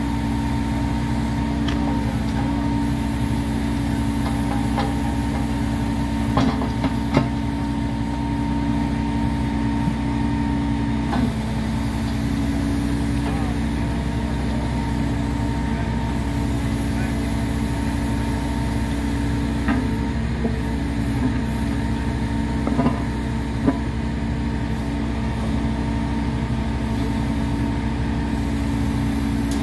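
The engine of heavy track machinery runs steadily throughout, with a few sharp metallic knocks from the track work.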